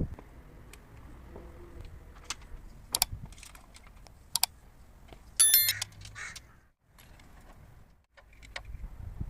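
Scattered sharp clicks and metallic taps over a low steady background, with a short high-pitched ringing sound about five and a half seconds in.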